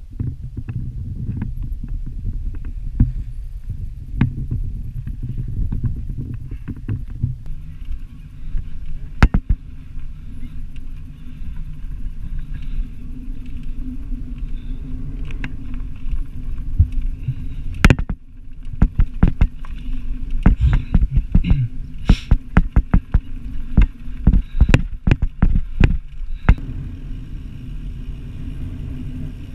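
Fat bike being ridden over sand, heard from a bike- or body-mounted action camera: a steady low rumble of tyres and wind on the microphone, with frequent sharp knocks and rattles from the bike jolting over bumps, coming thick and fast after the middle.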